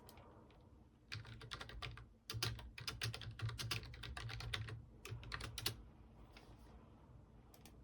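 Computer keyboard typing: a quick run of keystrokes from about a second in until about six seconds in, then a few scattered single clicks.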